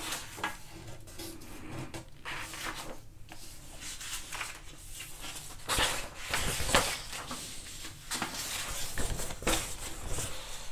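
Sheets of paper being handled and shifted, in irregular rustling bursts, the loudest about six to seven seconds in.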